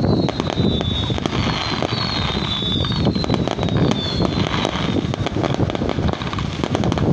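Distant fireworks display: a steady run of small crackles and pops, with a string of short, slightly falling whistles in the first few seconds, over a low rumble of wind on the microphone.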